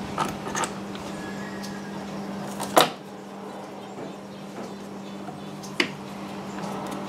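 Small parts being worked by hand on an outboard's idle adjustment knob and snap-ring retainer: a few sharp clicks, the loudest almost three seconds in and another about six seconds in, over a steady low hum.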